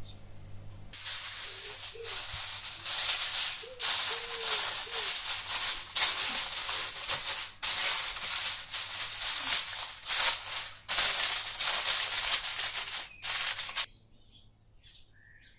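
Aluminium foil crinkling as it is pulled over a glass baking dish and crimped around the rim by hand, in a run of loud crackly bursts that starts about a second in and stops suddenly near the end.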